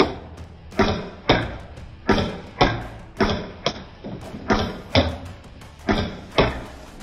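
A rapid series of about a dozen sharp bangs, mostly in quick pairs about half a second apart, as a gingerbread house is hit repeatedly and knocked apart.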